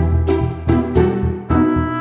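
Background music: a bouncy tune of short pitched notes over a bass line, on a steady beat of about two notes a second.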